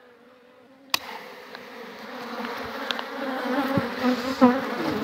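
A sharp knock about a second in, then the steady buzz of honeybees swelling louder as a mass of bees is shaken off a brood frame onto the ground.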